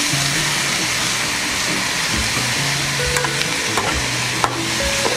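Vegetables sizzling in a frying pan on a portable gas burner as they are stir-fried, with a metal spatula clicking against the pan a few times.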